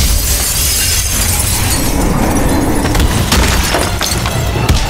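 A glass skylight shattering as a man crashes down through it, a sudden loud burst of breaking glass at the start. Several sharp impacts follow near the end.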